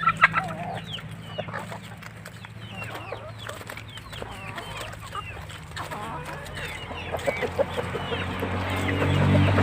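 A flock of chickens clucking and peeping, many short calls overlapping throughout, over a steady low hum that grows louder near the end.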